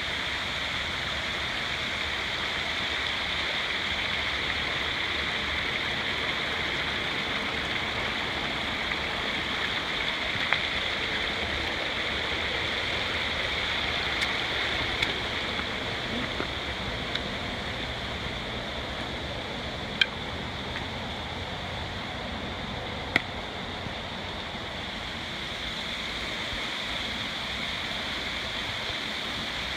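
Steady sound of running water from a small stream trickling over rocks and a thin waterfall spilling down a mossy cliff. A few sharp clicks sound partway through, two of them louder, about three seconds apart.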